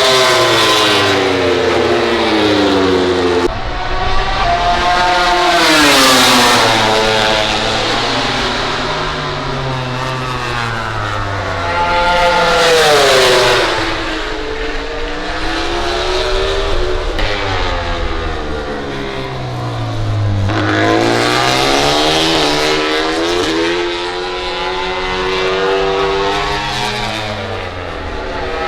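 MotoGP racing motorcycles passing one after another at speed, each engine revving high and then dropping sharply in pitch as it goes by, with the loudest passes coming every several seconds.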